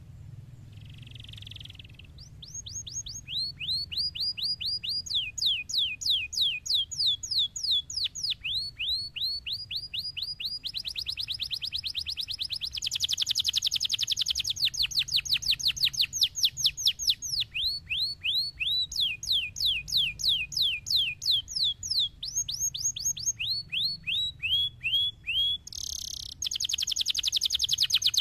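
Domestic canary singing a long, continuous song made of fast trills: runs of rapidly repeated sweeping notes, switching to a new note every few seconds. A short buzzy note comes about a second in and another shortly before the end.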